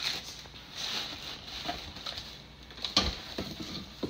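Plastic packaging bag rustling and crinkling as it is pulled off a coffee machine in a cardboard box, with a single sharp knock about three seconds in.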